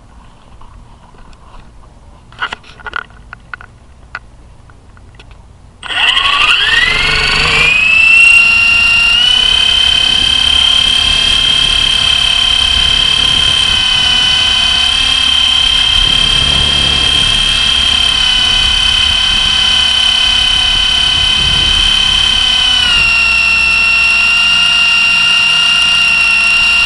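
A few light clicks, then about six seconds in the electric motor and rotor of a Blade SR radio-controlled helicopter start up. The high whine rises in pitch over a couple of seconds as the rotor spools up, then holds steady and loud, dropping slightly in pitch near the end.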